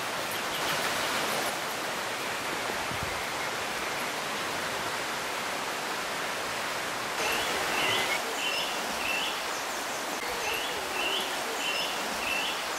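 Steady rushing of a nearby river, with a small bird chirping short repeated phrases from about seven seconds in.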